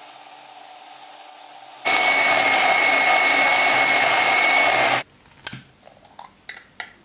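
Electric hand mixer whipping cream in a ceramic bowl, a steady motor whir with a whine, running moderately at first and much louder from about two seconds in, then cutting off abruptly. A few sharp clicks follow as the metal lid of a glass jar is worked open.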